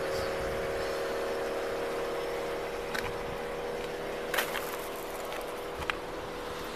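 Steady hum of motor vehicles running at the roadside, with road noise and a few short clicks partway through.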